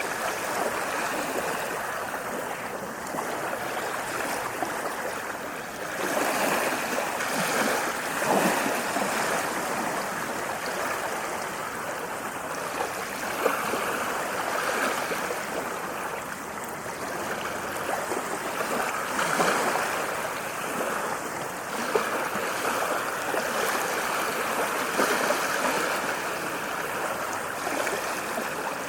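Small waves washing and lapping at the water's edge, a steady rush of water that swells and eases every few seconds.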